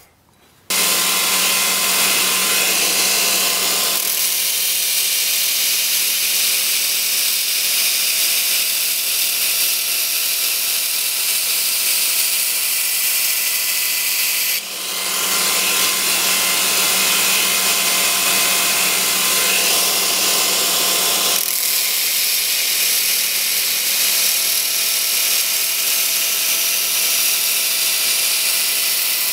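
Belt grinder running with a steel knife blade pressed against the abrasive belt on the contact wheel, a steady loud grinding hiss over the machine's hum: hollow grinding a knife bevel. It starts about a second in and briefly dips about halfway through.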